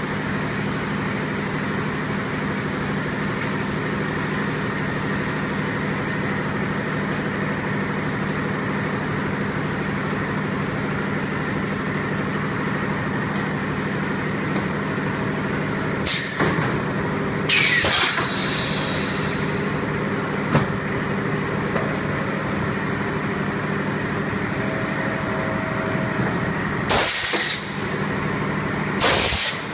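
HDPE extrusion blow moulding machine running with a steady hum and a thin high tone. Past the middle come four short, loud bursts of air hiss, some with a falling whistle, typical of compressed air blowing and venting in the moulds.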